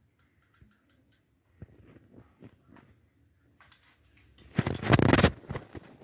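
Light clicks and ticks from a caulking gun and hands while silicone sealant is squeezed onto a washing machine tub rim. About four and a half seconds in comes a loud rustling, scraping handling noise lasting about a second.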